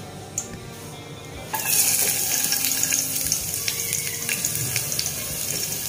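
Garlic pieces dropped into hot cooking oil in a wok, setting off a steady sizzle with crackling pops about a second and a half in.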